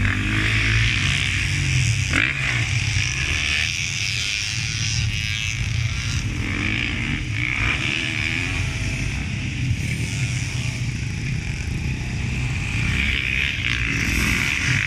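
Several motocross dirt bikes running on the track, their engines rising and falling in pitch as the riders open and close the throttle. The sound grows louder near the end.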